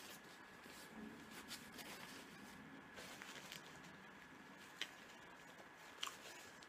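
Faint eating sounds: soft chewing with paper napkin and food wrappers rustling, and two short sharp clicks near the end.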